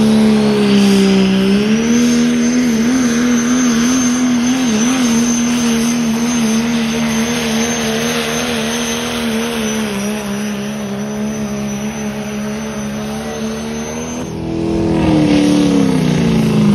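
Diesel pickup truck engine at full throttle under heavy load, pulling a weight-transfer sled, with a high turbo whistle that rises over the first two seconds and then holds. About fourteen seconds in, a second diesel pulling truck's engine takes over, louder, its pitch falling.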